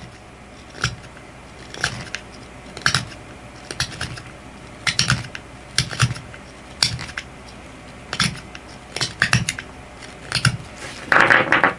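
A 440C stainless steel knife blade whittling an elk antler tip: short scraping strokes about once a second, with a longer, louder scrape near the end.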